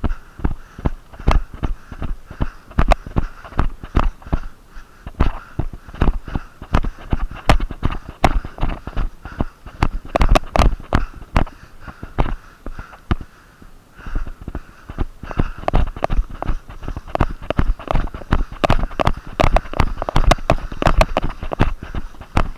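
Footsteps through the woods, about two or three a second, with a brief pause about twelve seconds in, over the wearer's heavy breathing through a blocked nose.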